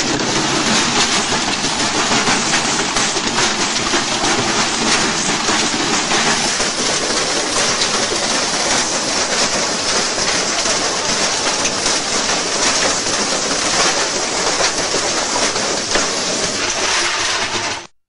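Washing machine running badly out of balance and shaking itself apart: a loud, continuous clatter of rapid knocks and rattles from the drum and casing, which stops abruptly near the end.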